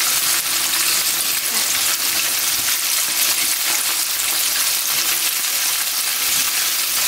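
Flour-and-starch-coated boneless chicken pieces deep-frying in hot oil in a wok during the first fry: a steady sizzle with fine crackling.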